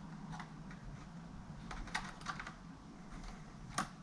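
Light plastic clicks and taps as a laptop's docking-station port cover is worked into place, with a sharper single click near the end.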